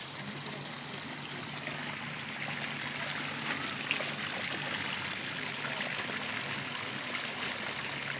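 Water running steadily out of a dug channel into standing water, churning and foaming where it pours in.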